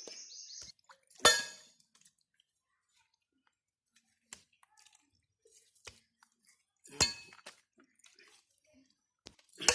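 A metal blade chopping through meat and bone: three sharp strikes, about a second in, about seven seconds in and at the end, each with a brief metallic ring, with faint knocks and scrapes between.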